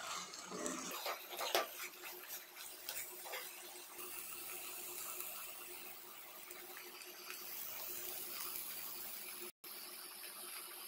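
Steel spoon stirring and scraping a mashed potato and onion filling in a non-stick pan, with knocks against the pan in the first few seconds, over a steady sizzle of frying. The sound cuts out for a moment near the end.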